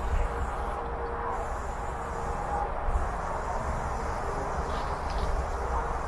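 Steady low rumble with a faint steady hum: background noise around a freight train in a rail yard, with no clear single event.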